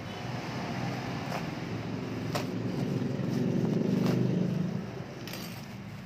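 A motor vehicle's engine passing by, growing louder to a peak about four seconds in, then fading. Over it come a few sharp crackles of plastic bubble wrap being handled.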